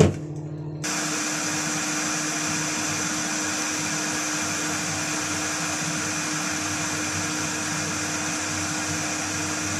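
Glass electric kettle heating water toward the boil, giving a steady hiss that starts about a second in; fine bubbles are rising just before a full boil.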